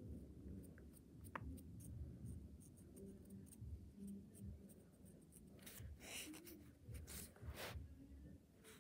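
Faint scratchy rubbing of a cotton swab against the tip of a felt-tip marker, inking the swab, with light handling noise; four or five short, louder rubbing strokes come in the second half.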